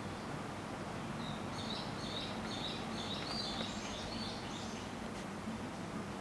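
A small bird twittering a quick run of short, high chirping notes for a few seconds in the middle, over faint steady outdoor background with a low hum.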